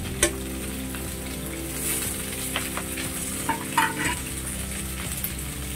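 Drumstick (moringa) pod and potato pieces frying in hot oil in an aluminium kadai, a steady sizzle, with a few light clicks.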